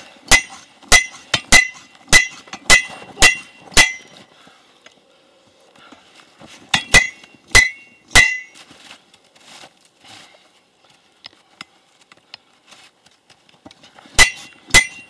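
Slide hammer on a steel ground-anchor post striking metal on metal as the post is driven into the ground: sharp clanks with a short ring, about seven in a quick steady run, then three more after a pause, and two more near the end.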